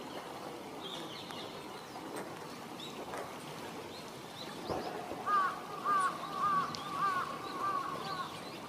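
A bird calling in a series of about seven quick rising notes, roughly two a second, in the second half, with faint high chirps from another small bird earlier, over a steady outdoor background.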